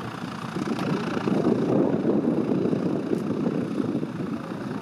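Pipistrel Alpha Electro electric aircraft taxiing on grass: its electric motor and propeller give a low, even rushing noise with no engine note, growing louder in the middle as the plane comes closer.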